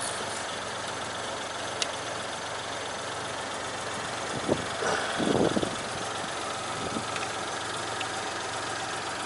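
Car engine idling steadily, with a sharp click about two seconds in and a short louder clatter of handling a little past halfway.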